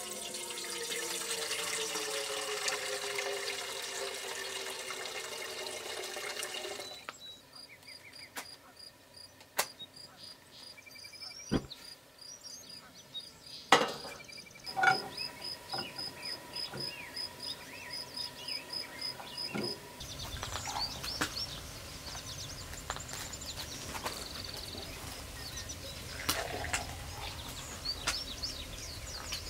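Water running from the spigot of a plastic water jug into an enamel camp pot, with a ringing tone that shifts as the pot fills, stopping about seven seconds in. Then a quieter stretch with a few sharp clinks and knocks as the pot is set on a camp stove, over a high, evenly repeated chirping. From about twenty seconds in, a steady hiss to the end.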